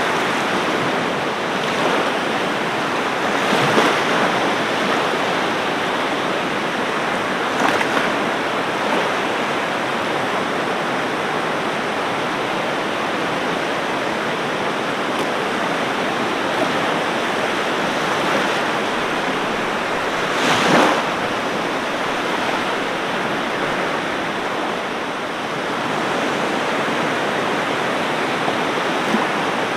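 Ocean waves washing onto a beach: a steady rushing hiss of surf, with brief louder splashes about 4 and 8 seconds in and the loudest about 21 seconds in.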